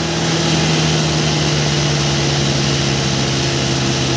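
Mahindra 575 DI XP Plus tractor's four-cylinder diesel engine running steadily at a constant speed.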